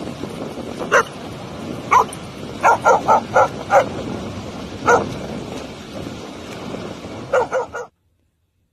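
A dog barking in short, sharp barks: single barks about a second apart, then a quick run of about five, then more, over a steady rushing background. It cuts off suddenly near the end.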